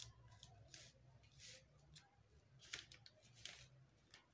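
Faint scratching of a pen drawn along a plastic curve ruler on pattern paper, in a few short strokes, over a low hum.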